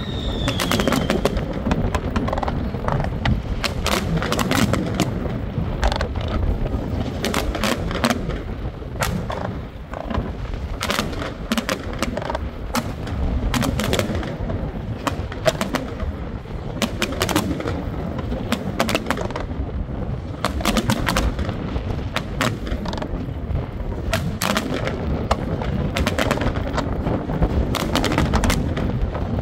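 Fireworks display: a rapid, irregular run of bangs and crackles from shells and fountains bursting, over a constant low rumble.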